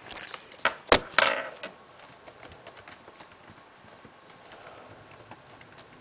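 A few sharp knocks and one loud knock about a second in as a laptop is handled, then scattered light clicks and taps of the laptop's keyboard and touchpad.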